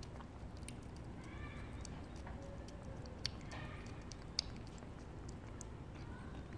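A cat eating soft wet food: small wet chewing and lapping clicks, with two sharper clicks about three and four and a half seconds in, over a steady low background rumble.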